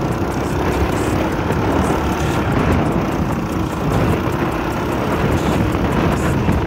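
Motorcycle engine running steadily while riding on a dirt road, with heavy wind noise on the microphone.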